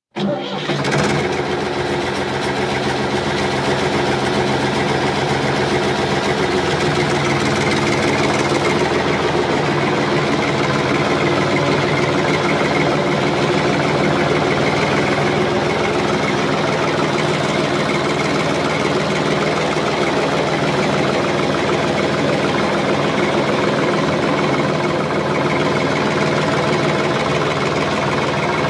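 Tractor diesel engine running steadily at idle, coming in abruptly at the start, with a slight shift in its pitch about seven to nine seconds in.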